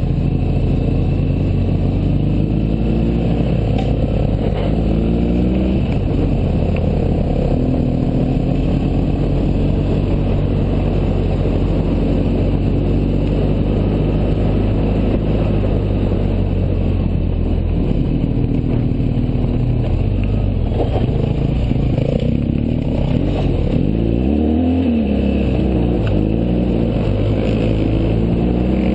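BMW GS boxer-twin motorcycle engine running under way on a gravel road, its pitch rising and falling again and again with throttle and gear changes, over a steady rush of wind and tyre noise.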